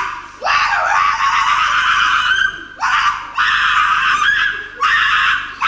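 A woman's voice letting out a run of long, high shrieking cries, each starting with a quick upward slide and then held, with short breaks between them.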